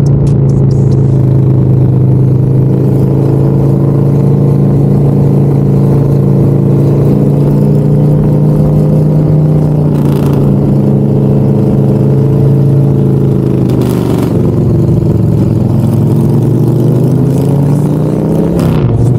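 Motorcycle engine running at a steady pitch under way. About 14 seconds in the note drops, then climbs back up over the next few seconds as the bike slows and picks up speed again.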